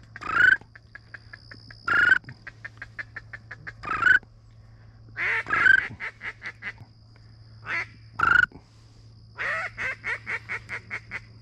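Waterfowl calling: loud calls repeating about every two seconds, each followed by a quick run of short notes, over a faint steady low hum.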